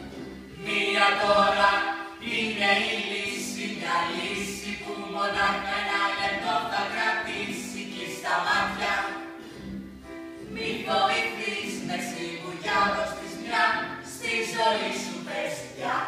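Several voices singing together in chorus, in short phrases with brief pauses between them.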